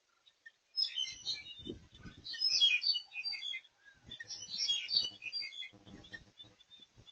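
Small birds chirping rapidly in two bursts of a few seconds each, with soft low thumps beneath.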